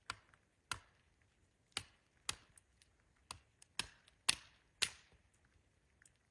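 A series of sharp knocks, about nine irregular strikes over five seconds, the loudest a little past the four-second mark.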